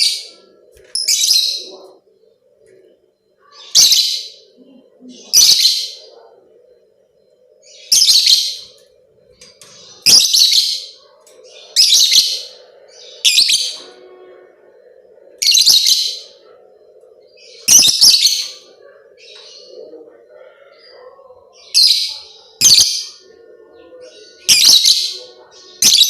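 Lovebird giving repeated short bursts of high-pitched, chattering chirps, one every one to two seconds, over a faint steady hum.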